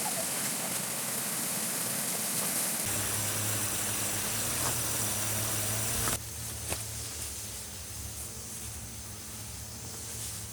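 Running stream water, a steady rushing hiss. The sound changes abruptly about three seconds in and again about six seconds in, when it becomes quieter.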